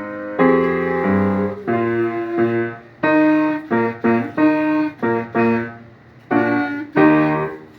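Music: held chords played in short phrases with brief gaps between them, the last chord ending just before the end.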